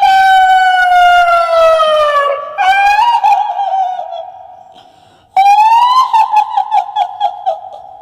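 High-pitched wailing of a woman's voice as a kuntilanak ghost sound: a long, slowly falling wail, a second wavering cry that fades away, then a rising shriek about five and a half seconds in that breaks into a rapid, trembling pulsing as it dies away.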